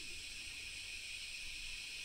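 Steady hiss of a vape draw: an eLeaf Melo 2 tank fitted with a 0.2-ohm Ni200 Vaporesso Ccell ceramic coil, the coil firing while air is pulled through it in one long inhale.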